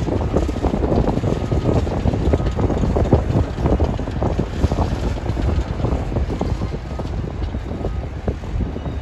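Wind buffeting the microphone: a steady low rumble with irregular crackling, fullest in the first half.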